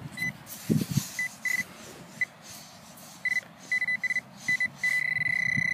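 Metal-detecting pinpointer beeping a single high tone, first in scattered short beeps and then faster, merging into one steady tone near the end as it closes in on a buried coin. There is a soft low thump about a second in.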